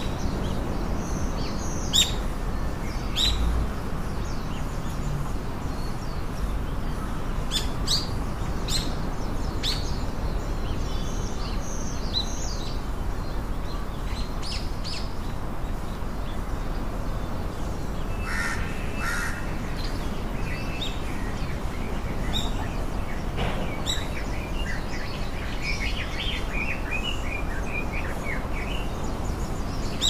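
Birds chirping in short, high calls scattered throughout, with a crow cawing harshly about eighteen seconds in and a quick run of chattering calls near the end, over a steady background noise.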